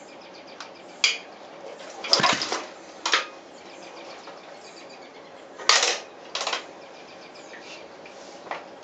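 Freshly rebuilt Honda CB360 motorcycle engine being started: about six short, sharp bursts at irregular intervals without the engine settling into a steady run.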